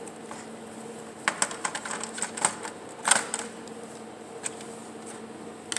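Small metallic clicks and ticks of a screwdriver working the motherboard screws in a Dell Optiplex 755's steel chassis. There is a quick run of clicks about a second in, the loudest near the middle, then a few scattered ticks.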